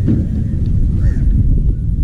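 Wind buffeting the microphone in a loud, uneven low rumble, with a crow cawing once about a second in.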